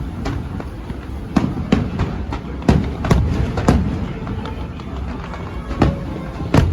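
Fireworks show: aerial shells bursting in a string of sharp bangs, several close together around the middle, over a continuous low rumble.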